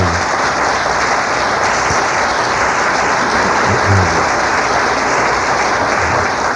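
Audience applauding steadily for several seconds, with a brief voice calling out over it a couple of times; the applause dies away near the end.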